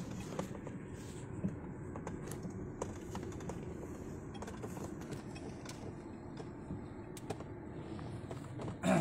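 Car running at low speed, heard inside the cabin: a steady low engine and road rumble with scattered light clicks and rattles. Just before the end a short, louder sound falls quickly in pitch.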